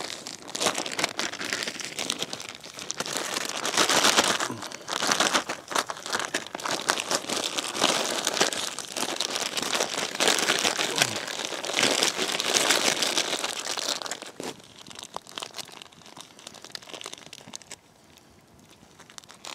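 Bannock dough being mixed and kneaded by hand, with crinkling, rustling handling noise in dense bursts that die down after about 14 seconds.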